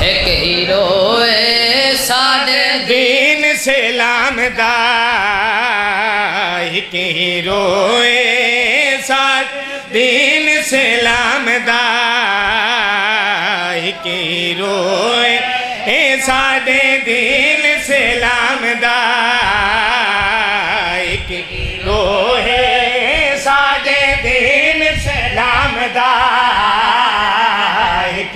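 A boy chanting a noha, a Shia mourning elegy, into a microphone in long, wavering sung phrases, with a man's voice joining in.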